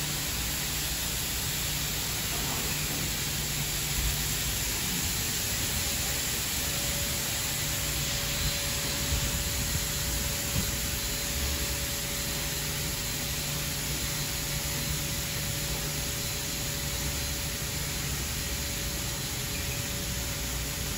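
Ryko Radius HT touchless car wash spraying water onto a vehicle: a steady hiss of spray with a low hum underneath.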